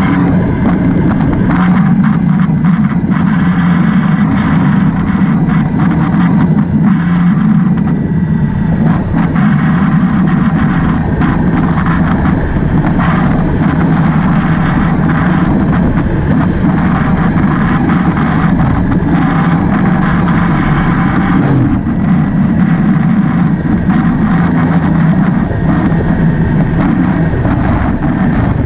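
Motorcycle running steadily at road speed, its engine drone mixed with wind rushing over the microphone.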